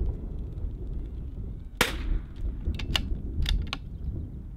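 .22LR bolt-action rifle firing a single sharp shot about two seconds in, followed by four lighter clicks, over a steady low rumble of wind on the microphone.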